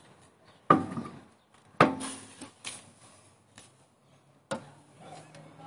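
Three sharp metallic knocks, the first two close together and the third about three seconds later, as a BMW E39's alloy wheel is fitted back onto the rear hub and its bolts started.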